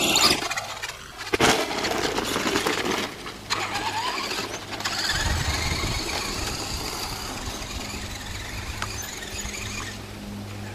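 Traxxas Stampede RC truck's 13T brushless electric motor whining, rising and falling in pitch as it is throttled, over the rough sound of its tyres on dirt. Two loud bursts of noise come in the first second and a half.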